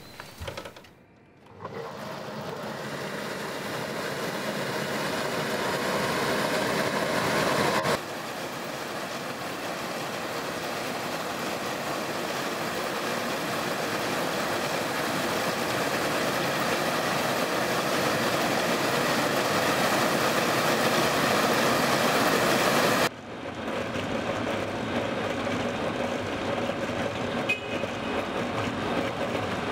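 Rail-mounted chain-arm quarry saw cutting soft limestone, a steady grinding machine noise that swells gradually and drops abruptly twice, about 8 and 23 seconds in.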